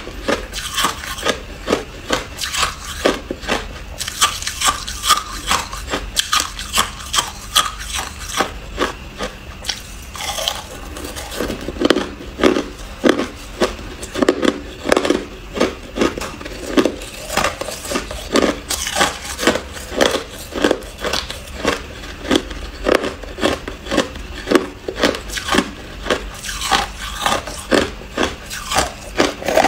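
Close-miked crunching of hard clear crushed ice being bitten and chewed, a steady run of sharp crunches at about two to three a second.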